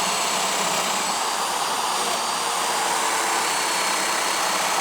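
Festool Domino joiner running with its dust extraction, a steady whir and airy hiss with a faint high whine, holding even throughout.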